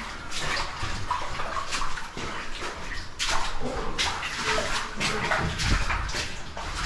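Irregular scuffs and scrapes of a caver moving over rock, mixed with water noise.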